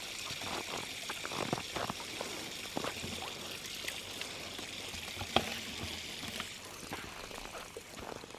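Water running steadily, as from a tap while washing up, with a few light clinks and knocks, one sharper click about five seconds in.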